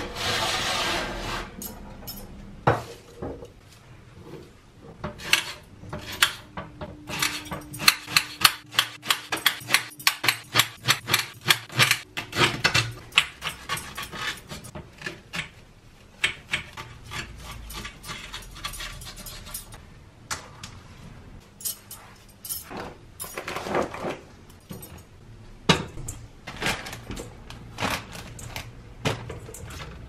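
Kitchen knife slicing a leek on a cutting board: a fast run of sharp knocks of the blade on the board, about five a second, then slower, scattered cuts. A short scrape and clatter at the start as a baking dish is slid onto the oven rack.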